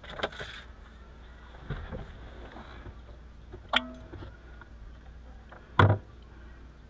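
Scattered clicks and knocks of hand work on a car: a short clatter at the start, a couple of soft knocks about two seconds in, a sharp knock that rings briefly about four seconds in, and the loudest, heavier knock about six seconds in.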